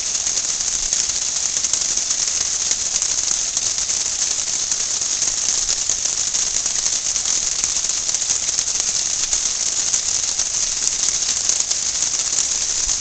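Small stone waterfall steadily splashing into a garden pond, a dense crackling hiss.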